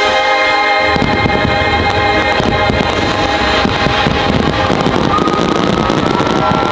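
Finale barrage of aerial fireworks: a dense run of booms and crackles that starts about a second in, over the show's orchestral patriotic soundtrack with long held notes.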